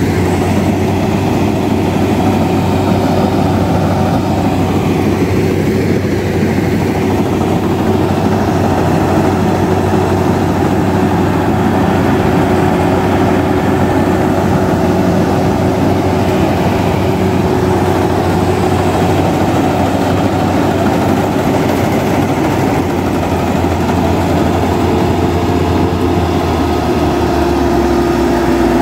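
Crawler-type rice combine harvester running steadily while it cuts paddy: a loud, even engine drone with a constant tone above it. The pitch of the low hum shifts slightly near the end as the machine comes close.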